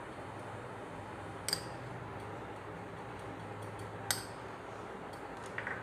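A spoon lightly clicking against a glass bowl and plate as thick batter is scraped out: two sharp clicks, about a second and a half in and again about four seconds in, with a few fainter ticks, over a low steady hum.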